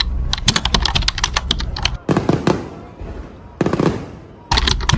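Fireworks crackling: several bursts of rapid sharp pops, each over a low rumble, coming in clusters a second or two apart.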